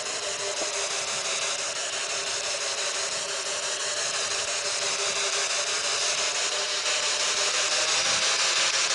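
Steady radio-like static hiss with faint wavering tones, coming from a small handheld ghost-hunting device's speaker.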